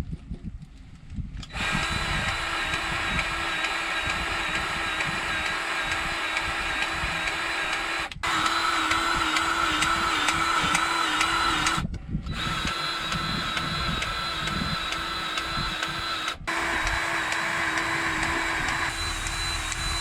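Battery-powered grease gun's electric motor whining steadily as it pumps grease into the combine's fittings, starting about a second and a half in, with three brief breaks.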